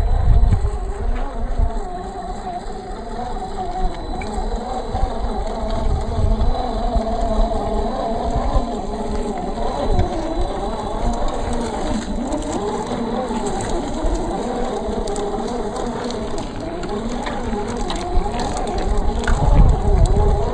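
Electric motor and helical-gear whine of a 1/10-scale RC crawler, rising and falling in pitch as the throttle changes. Low rumbling comes and goes near the start and near the end, and light crunching of the tyres over dry dirt clods is heard mostly in the second half.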